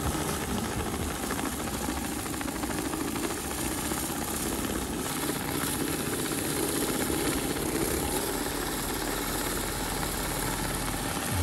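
Rotary surface cleaner on a steam pressure washer lance, spinning over wet slate roof tiles. A steady hissing, whirring noise from the spray jets, with a churning drone underneath.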